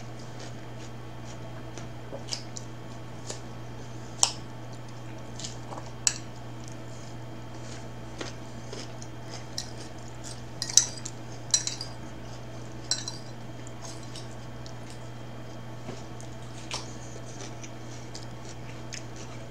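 Metal fork clinking and scraping against a ceramic salad bowl while eating: a scattered handful of short, sharp clinks over a steady low hum.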